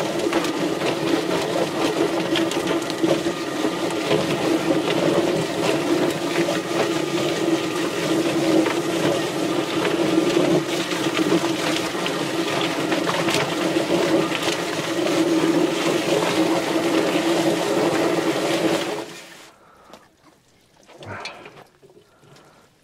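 Drum-style chicken plucker running with a scalded bird tumbling inside while water is hosed into the drum: a steady motor hum under a rushing wash of water and rapid knocking. It shuts off abruptly a few seconds before the end.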